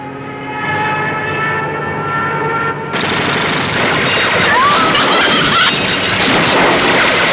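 Propeller floatplane engine droning and growing louder. About three seconds in, machine-gun fire and explosions break out on the boat's deck in a dense, continuous din.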